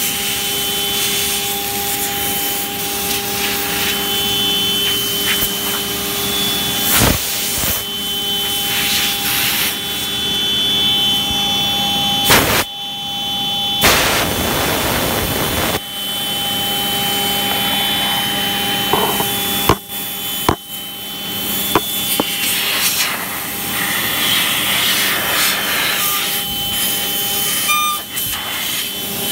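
CNC router spindle running with a steady whine while its bit cuts a winding groove through a sheet of board, the cutting making a coarse hiss. The sound breaks off briefly about twelve seconds in, then comes back louder for a couple of seconds.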